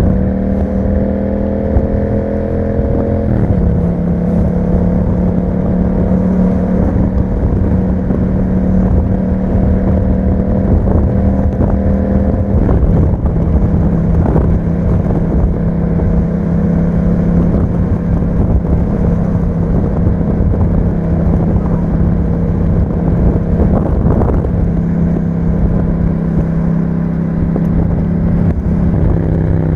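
Yamaha MT-07's parallel-twin engine through an Akrapovic exhaust, running at a steady cruising pace under light throttle. The engine note drops a little about three seconds in, then holds, with short dips in revs a couple of times.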